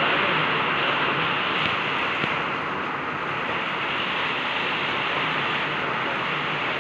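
A steady, even hiss, strongest in the upper-middle range, with one faint click about two seconds in.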